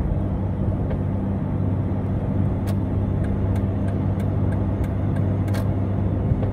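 Steady drone inside the cabin of a 2001 Jeep Grand Cherokee cruising at highway speed around 2000 rpm: engine hum and road noise. A few faint ticks come in the middle.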